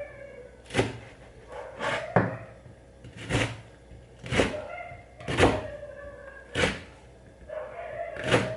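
A kitchen knife cutting through green chillies onto a cutting board: single sharp chops, about one a second, eight in all.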